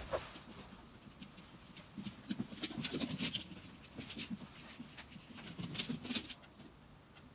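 Faint footsteps and light scattered taps on a wooden floor, from a small dog's paws and a person walking across the room. The soft footfalls come in clusters, strongest a couple of seconds in and again near the end.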